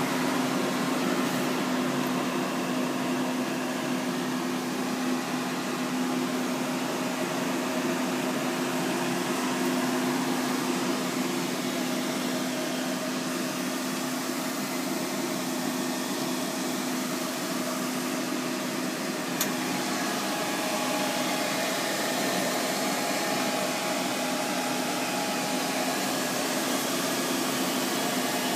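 An outdoor telecom cabinet's cooling unit running: a steady whir of fans with a low, constant hum. There is a faint click about 19 seconds in, after which a slightly higher steady tone joins the hum.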